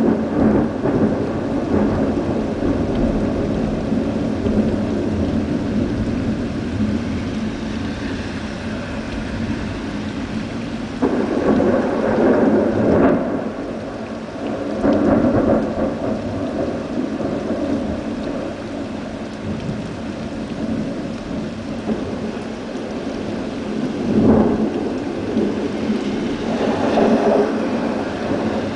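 Thunder rumbling over a steady hiss of rain, swelling louder several times.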